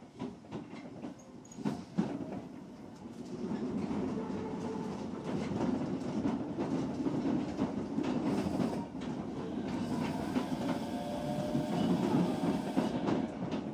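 Interior running sound of an Osaka Metro 66 series electric train pulling away and gathering speed: quiet with a few clicks at first, then a steady rumble of wheels on rail from about three seconds in, with rail-joint clatter and a faint motor whine slowly rising in pitch near the end.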